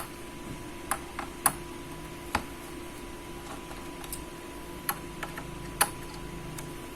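Scattered small sharp clicks and ticks of a screwdriver on screws and laptop parts as two small screws are taken out of the laptop's board, over a faint steady hum.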